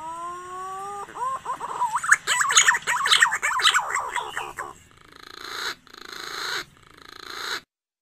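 Green pigeon (punai) call played as a bird-catching lure. A held whistled note rises slightly for about a second, then a fast run of warbling whistled notes sweeps up and down, then three swelling, rougher notes follow before the sound cuts off suddenly.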